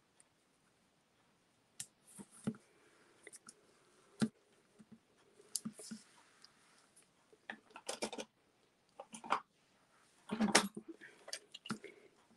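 Small cardstock pieces and foam adhesive dimensionals being handled on a craft mat: faint, scattered clicks, taps and short paper rustles, busier in the second half.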